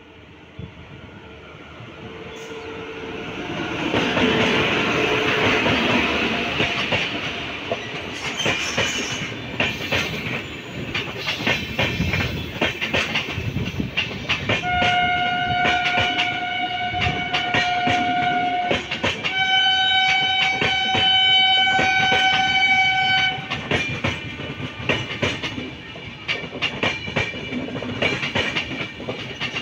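Locomotive-hauled passenger train approaching with a rising rumble, then running past with a steady clickety-clack of coach wheels over rail joints. The train horn sounds two long blasts about halfway through, the second slightly higher in pitch.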